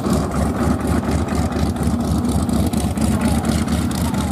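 Nanchang CJ-6 trainer's nine-cylinder radial engine idling as the plane taxis close by, running with an even, rapid pulsing beat.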